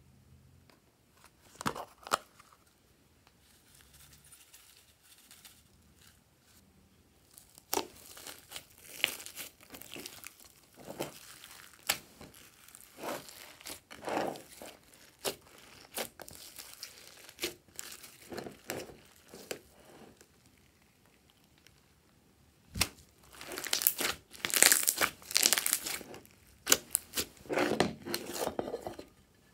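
Hands kneading, stretching and folding glossy slime mixed with foam beads, sprinkles and glitter in a glass tray: sticky squelching with crackles and pops. It starts with a couple of sharp clicks, the squishing grows busier about eight seconds in, and it is loudest a few seconds before the end.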